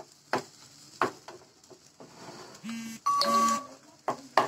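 Wooden spatula knocking and scraping in a frying pan as scrambled eggs are stirred, two short knocks in the first second. Near the three-second mark comes a louder, brief steady-pitched chime-like tone in two parts.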